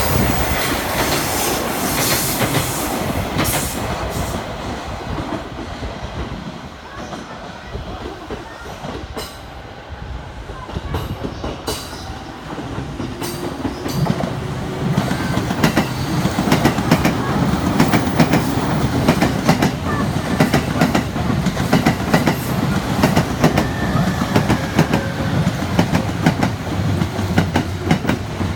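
Trains on the tracks: one train's rumble and wheel clatter fades away in the first few seconds, then, from about halfway, another train's rumble rises and stays loud, with a steady clickety-clack of wheels over rail joints.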